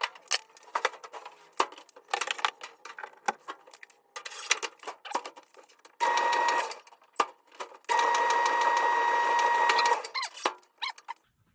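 Clothes dryer being handled and switched on after a door-switch replacement: a run of small clicks and knocks, then a steady high electric buzz, once briefly about halfway through and again for about two seconds near the end.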